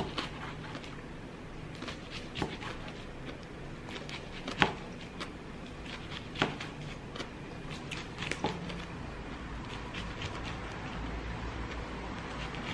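Kitchen knife slicing a gimbap roll, a string of irregular sharp taps as the blade cuts through and meets the cutting board, the loudest about four and a half and six and a half seconds in.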